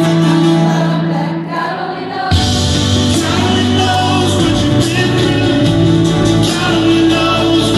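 Live band music with singing, heard from the audience at an arena concert: held chords for the first two seconds, then bass and drums come in together and the full band plays on.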